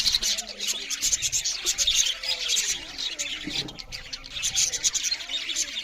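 A group of budgerigars chattering and chirping continuously, a dense mix of quick high chirps and warbles.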